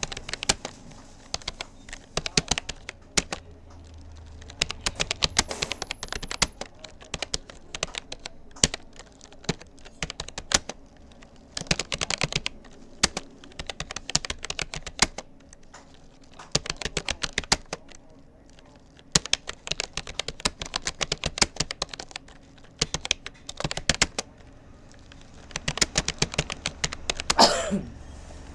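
Rapoo computer keyboard being typed on in quick runs of key clicks, broken by short pauses. Near the end a brief sound falls steeply in pitch.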